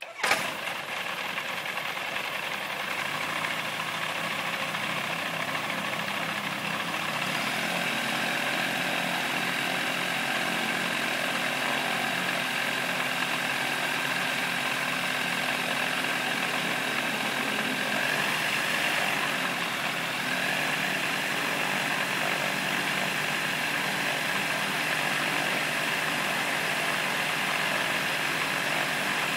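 Rotax engine of a newly built light aircraft starting up: it catches suddenly with a short loud burst, then runs steadily at idle, turning the propeller. Its running note shifts slightly about three and again about seven seconds in.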